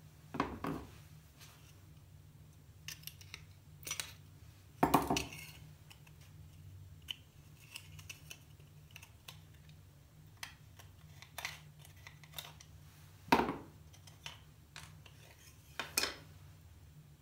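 Old metal hand-drill parts being handled and set down on a wooden workbench: a string of knocks and clinks, the loudest about five seconds in and again near the end, over a low steady hum.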